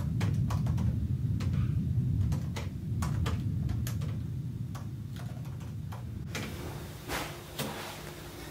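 Typing on a laptop keyboard: irregular key clicks over a low, steady rumble. The typing stops about six seconds in, and a couple of soft knocks follow.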